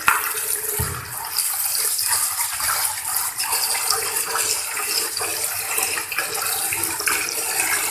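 Tap water running into a pressure cooker pot as whole black urad lentils are rinsed, a steady splashing hiss, with a low knock a little under a second in.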